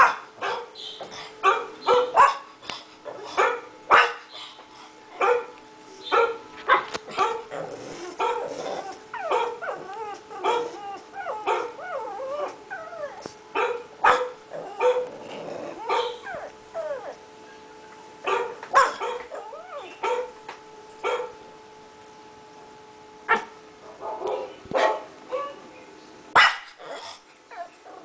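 Pug puppy barking in short sharp barks, many in a row, with whimpering and yips between them in the middle stretch. He is barking back at dog barks heard from a video.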